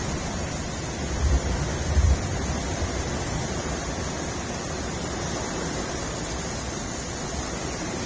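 Heavy rain pouring down, a dense steady hiss. Low wind buffets hit the microphone about one and two seconds in.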